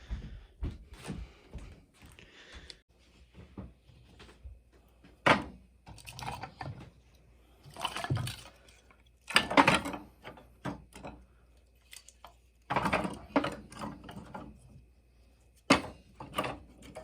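Irregular knocks, clicks and short scrapes of metal parts and hand tools being handled on a wood stove's door while its glass is refitted, with the louder clatters coming about five times.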